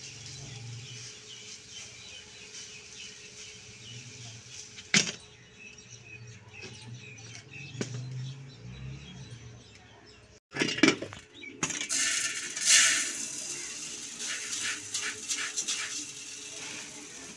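Wheat grain rattling in a steel pot as it is handled by hand, with a couple of sharp knocks against the pot. After a short break, a louder rushing rattle of wheat pouring from a metal storage bin's spout into the pot.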